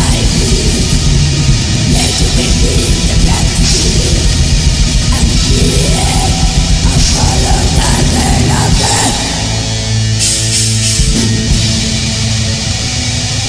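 Heavy metal song with distorted guitars and a fast, dense drum kit. About nine seconds in the drumming thins and long held chords ring out.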